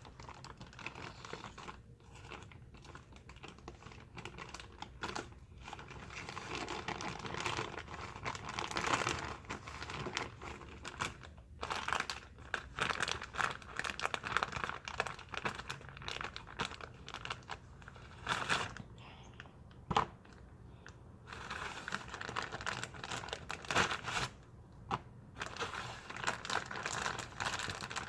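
Packaging crinkling and rustling in irregular bursts as it is handled, with many short crackles.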